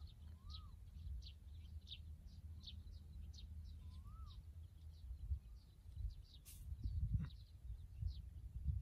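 Small birds chirping: quick, high, short chirps a few times a second, with two short whistled notes that rise and fall, one near the start and one about four seconds in, over a low steady rumble.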